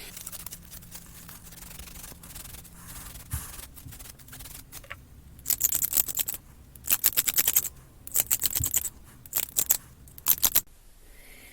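Hand sanding the inside of an acrylic ring blank to widen its bore for the ring core. Faint rubbing at first, then from about halfway on, several short runs of quick, louder scratchy strokes that stop near the end.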